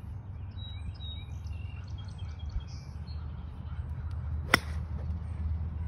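A golf 7-iron striking the ball in a full swing: one sharp click about four and a half seconds in. Birds chirp over a steady low background rumble.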